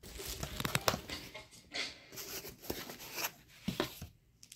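Gift packaging being handled: irregular rustling and crinkling of plastic and paperboard, with light clicks and knocks.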